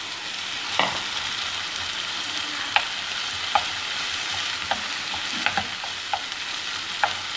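Onion, red pepper and mashed potato sizzling in oil in a nonstick frying pan, with a wooden spoon knocking and scraping against the pan about once a second as the mixture is stirred.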